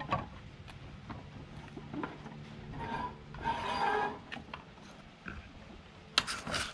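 Mountain bike tire bead being worked by hand onto a Mavic CrossMax XL Pro rim over a CushCore insert: rubber rubbing against the rim, loudest about halfway through, with a few sharp clicks near the end.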